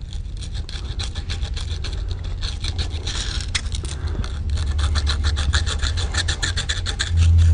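Strip of fine emery cloth drawn rapidly back and forth, shoeshine-style, around the hook of a side-by-side shotgun's barrels, polishing the hook's bearing surface smooth after fitting: a quick, even rubbing of several strokes a second. A loud low hum comes in near the end.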